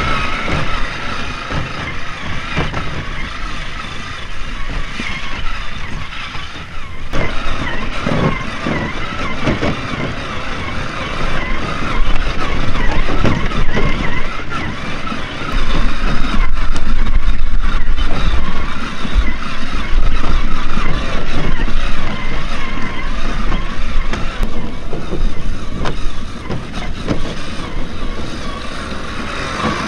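Electric drive motor and gears of a 1/8-scale RC Jeep Wrangler crawler whining, the pitch rising and falling with the throttle as it climbs over loose dirt. A heavy low rumble comes in about twelve seconds in and is the loudest part for about ten seconds.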